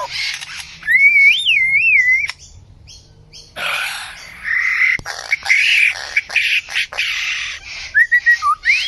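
A bird calling: a loud wavering whistle about a second in, then a run of harsh, scratchy squawks, and another wavering whistle near the end.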